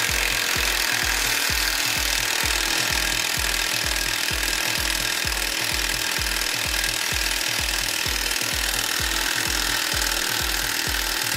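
Makita cordless impact wrench running steadily on a 14 mm socket, spinning a sway bar link nut off while the stud is held with a wrench. A steady low beat of background music runs underneath, about two pulses a second.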